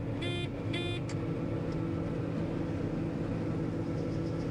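Steady engine drone of a farm machine heard inside its cab during corn harvest, with two short electronic warning beeps about half a second apart near the start.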